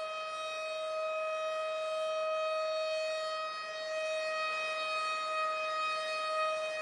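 A steady alarm tone held at one unchanging pitch, with a hiss beneath it.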